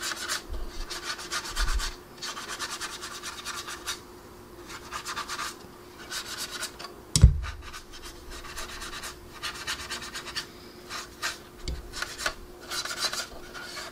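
Soft paintbrush rubbing over a plastic scale model's painted surface in quick, repeated strokes, blending oil-paint weathering along the panel lines. A single knock sounds about seven seconds in, over a faint steady hum.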